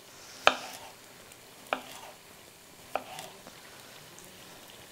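Three knife strokes slicing a cucumber thinly, each ending in a sharp knock of the blade on a wooden cutting board, about a second and a quarter apart, the first the loudest. A faint sizzle of cutlets frying in oil runs underneath.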